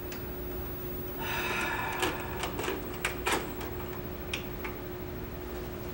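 A VCR being worked by hand: a short mechanical whir about a second in, then a run of clicks and clunks from the deck and its buttons, over a steady hum.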